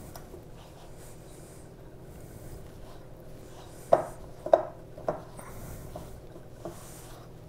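Hands working flour and water into a shaggy pizza dough in a glass bowl: a soft, steady rubbing and pressing. A little past halfway come three sharp knocks against the bowl, about half a second apart, the first two loudest.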